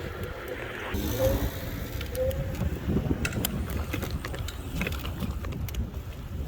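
Wind buffeting the microphone over steady low rumble while riding an electric scooter, with a few scattered clicks.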